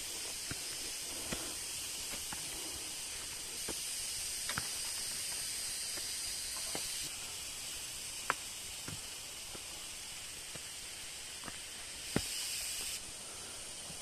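Footsteps on a dry, leaf-littered dirt trail, with scattered snaps, taps and knocks from a walking stick and twigs, the sharpest about eight and twelve seconds in. A steady high hiss of forest ambience lies under them, rising and falling in level a few times.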